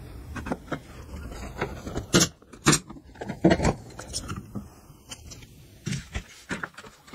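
Pallet-wood pieces and a metal speed square being handled and set down on a wooden workbench: irregular knocks and clatters, the loudest a few sharp knocks about two to three and a half seconds in.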